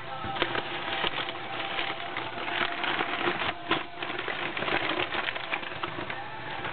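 Crumpled packing paper crinkling and rustling as it is pulled out of a cardboard box, a dense run of crackles.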